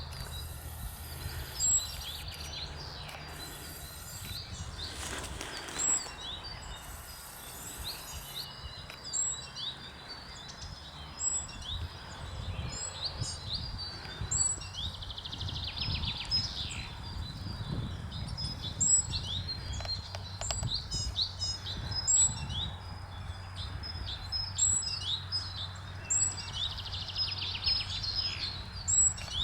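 Small birds chirping repeatedly, short high chirps coming every second or so throughout, over a steady low rumble of outdoor noise.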